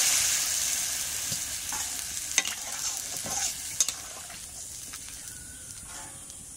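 Water poured into a hot kadai of pumpkin and potato curry sizzling, the hiss dying away over a few seconds. A spatula stirs the curry, knocking against the pan a few times.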